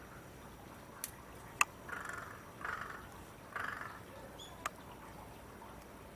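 An animal gives three short, harsh calls in quick succession, with several sharp clicks around them; the loudest click comes about a second and a half in.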